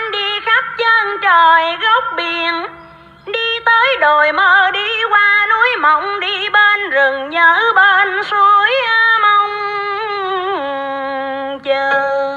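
Vietnamese cải lương singing, a single voice with heavy vibrato and sliding, ornamented notes, played from a cassette through the speaker of a BASF-badged Aiwa TPR-201 radio-cassette player. The voice breaks off briefly about three seconds in and holds long notes near the end. The sound is thin and lacks top end, as playback from a tape through a small speaker is.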